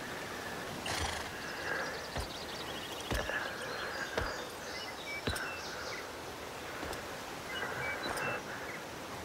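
A horse whinnying, over slow, heavy steps thudding on dirt about once a second.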